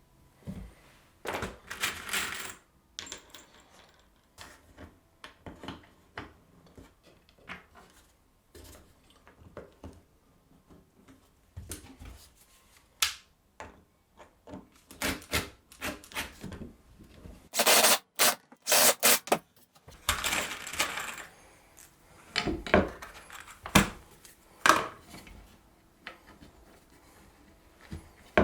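Woodworking handling sounds: pine trim boards and tools knocked, set down and slid, giving irregular clicks, knocks and scrapes, with a quick cluster of sharp hits about two-thirds of the way through.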